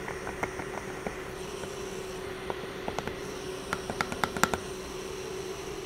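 Light clicks and taps from a hand handling the wireless microphone clipped to the pistol, a few faint ones early and a quick cluster about four seconds in, over a steady machine hum.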